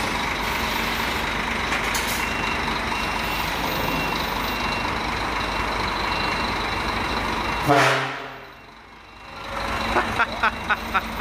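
Pink Scania truck's diesel engine running steadily. About three-quarters of the way in, a short loud tone is followed by a sudden drop in sound. Near the end come a quick run of short sharp pulses, about four a second.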